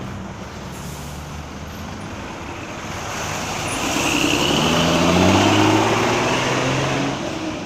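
A heavy road vehicle passing close by on a highway: its engine and tyre noise swell to a peak about five seconds in and die away, the engine note climbing slowly as it goes by.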